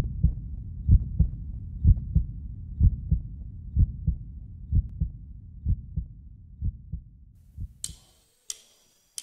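Heartbeat sound effect: a low double thump about once a second, growing fainter until it dies away about eight seconds in, followed by a couple of brief sharper noises near the end.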